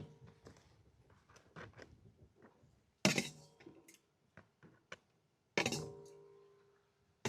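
Sharp knocks of hard objects, three times, each leaving a short ringing tone that fades, with light clicks and taps between.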